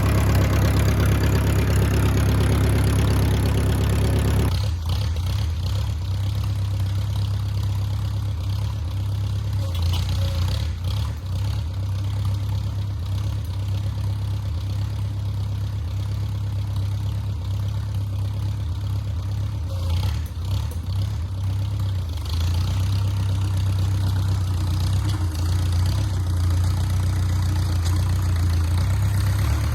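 Engine of a 1950s micro bulldozer idling steadily.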